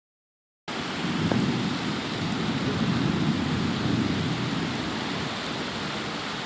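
Heavy rain pouring steadily, with a low rumble of thunder rolling through the first few seconds and fading.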